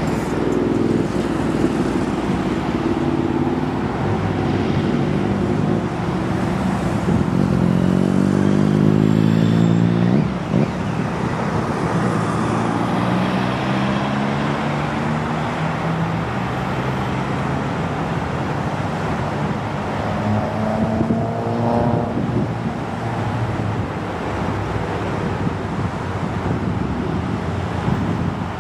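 Turbofan engines of a regional jet with two rear-mounted engines on short final, swelling as it comes straight in, then touching down and rolling out on the runway with the engine noise continuing.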